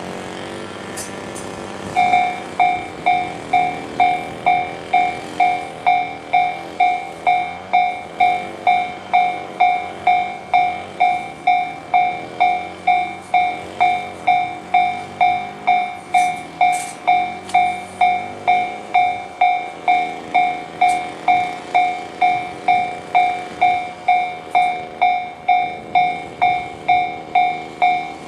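Japanese railway level-crossing alarm sounding the JR standard electronic bell. It starts about two seconds in and rings steadily at about two strikes a second, signalling an approaching train.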